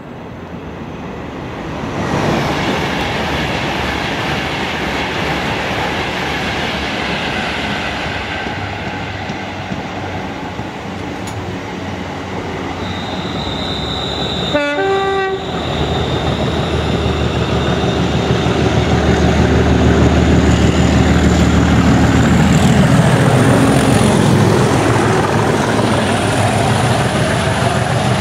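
Rail noise of a train approaching and growing louder, with a brief horn-like tone about halfway. It gives way to the heavy, steady low rumble of a Class 37 diesel locomotive's English Electric engine hauling a train slowly through the station, loudest in the second half.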